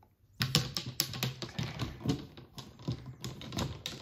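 Chrome steel golf iron heads of a Nike VR Pro set clicking and clacking against each other as clubs are handled in a row of hanging irons, a rapid irregular clatter starting about half a second in.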